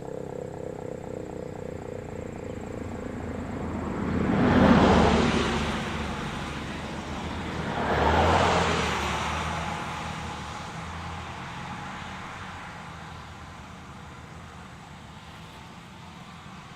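Two road vehicles passing by in turn, about four seconds apart, the first the louder: each a swell of tyre and engine noise that rises and dies away. A low hum at the start fades under them.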